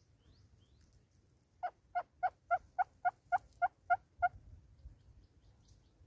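Southern red-billed hornbill calling: a series of about ten loud, evenly spaced clucks, roughly three a second, that stops abruptly after about three seconds.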